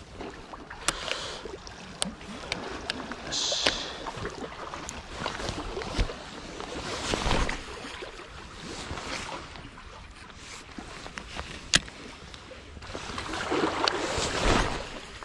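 Small waves lapping at the lakeshore with some wind, swelling twice, under scattered sharp clicks and knocks and a brief high hiss a few seconds in.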